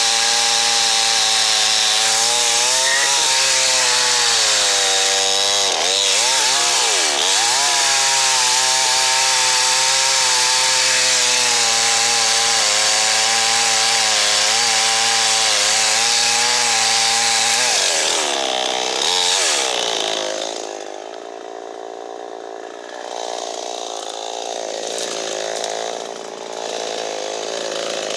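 Chainsaw running at full throttle while cutting dead standing ash, its pitch sagging several times as the chain bogs in the wood. About twenty seconds in it drops back to a quieter idle, then revs up again at the very end.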